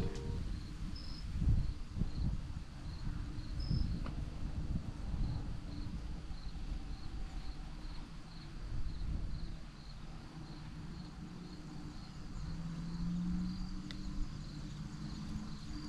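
An insect chirping in a steady high-pitched pulse, about twice a second, over low rumbling noise with a few soft knocks.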